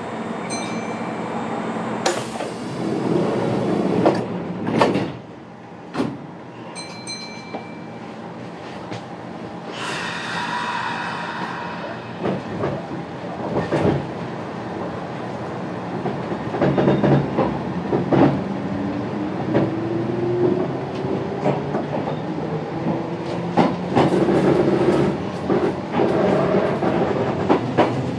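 Interior running noise of a Kintetsu electric train gathering speed: wheels clicking over rail joints, a short hiss about ten seconds in, and the traction motors' whine rising in pitch during the second half.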